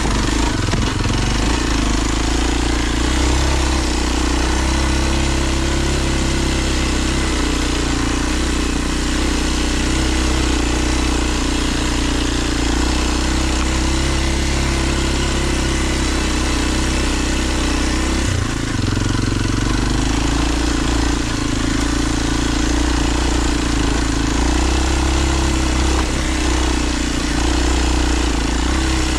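A Kawasaki KLX230 dual-sport motorcycle's single-cylinder four-stroke engine running steadily under load while riding a dirt trail, with a brief drop in revs about eighteen seconds in.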